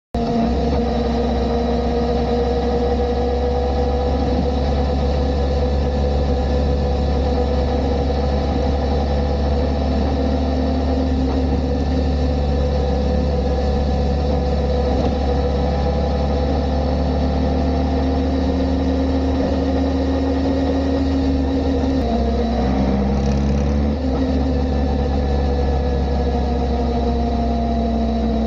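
Kawasaki ZR-7S air-cooled inline-four motorcycle running steadily together with its drive chain, the chain carrying the abnormal noise the owner is tracking down. The pitch shifts about 22 seconds in.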